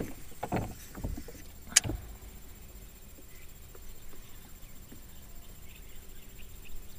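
Quiet sounds aboard a small fishing boat: a short rustle, then one sharp click a little under two seconds in, then a faint steady low hum over a soft even background.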